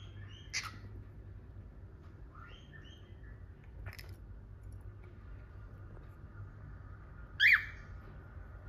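Cockatiels giving several short, separate chirps; the loudest, a sharp call with a falling sweep, comes near the end. A low steady hum runs underneath.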